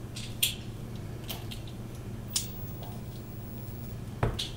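A few small clicks and scrapes from fingers handling the opened smartwatch phone as a SIM card is fitted into its slot, with one louder knock near the end. A steady low hum runs underneath.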